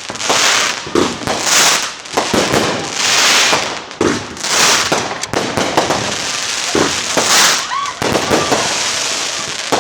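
Fireworks going off one after another: a quick run of bangs, each with a crackling hiss, about one or two a second.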